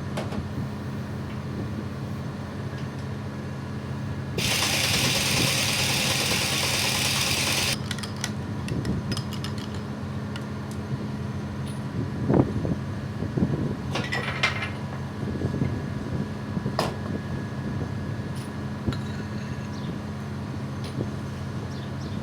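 A loud, even hiss of compressed air from the repaired air gun, starting about four seconds in and lasting about three seconds. A steady low hum runs underneath. Later there are scattered clicks and knocks of handling and a shorter hiss.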